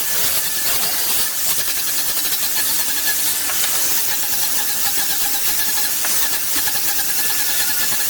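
A woodworking power tool running steadily: a dense, even hiss with a faint whine.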